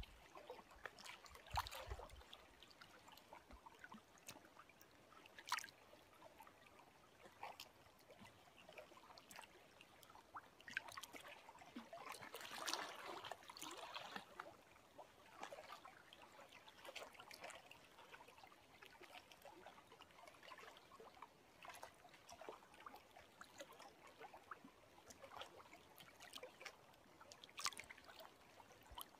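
Faint lapping of small lake waves, with irregular little trickles and splashes.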